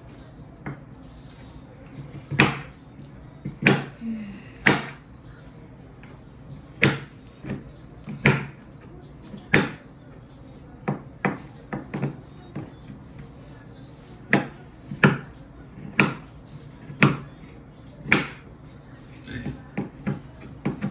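A series of sharp, short knocks, about one a second at uneven spacing, with a short cluster of quicker ones near the end.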